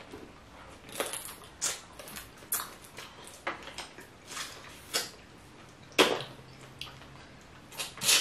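Boiled shellfish shells being cracked and pulled apart by hand, with wet squelching of sauce-covered seafood. The cracks and snaps come irregularly, and the loudest is about six seconds in.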